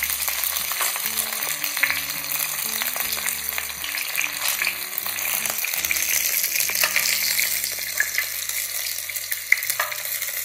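Fish frying crisp in hot oil in a pan, a steady sizzle with scattered crackles, and a couple of sharp knocks of a utensil against the pan.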